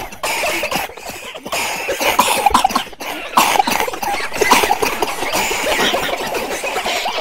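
A crowd of people coughing, many coughs overlapping in a dense, continuous stream.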